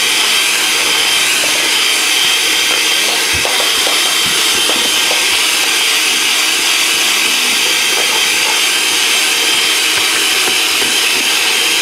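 Electric hand mixer running steadily, its beaters churning chocolate cake batter in a plastic bowl, with a steady high motor whine and a few light knocks of the beaters.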